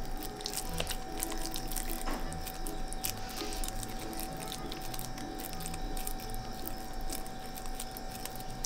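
Soft wet squishing and small clicks of a minced carp mixture with soaked bread and egg being squeezed and rolled into balls in bare hands, over quiet background music.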